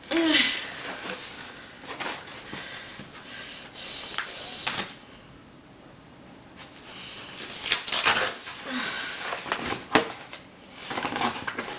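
Amazon cardboard parcel being torn and pulled open by hand: a string of irregular rips, creases and crinkling handling noises, with a short strained vocal sound at the start.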